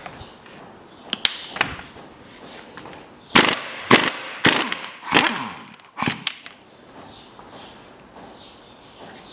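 Impact wrench on a 35 mm socket hammering in five short bursts about half a second apart, each with a metallic ring, breaking loose the driveshaft hub nut.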